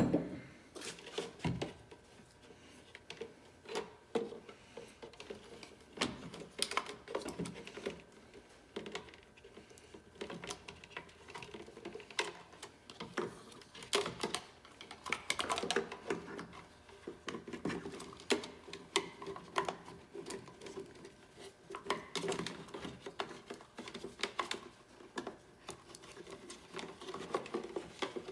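Irregular clicking and knocking of small metal parts and hand tools being handled.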